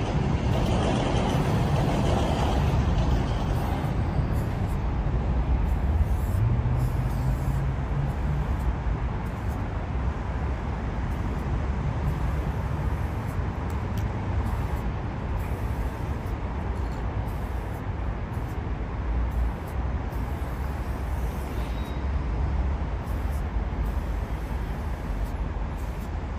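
Road traffic rumbling steadily, with one vehicle's engine note rising about six seconds in.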